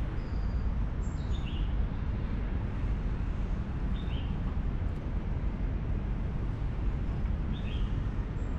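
Steady low outdoor rumble, with a small bird chirping briefly a few times over it.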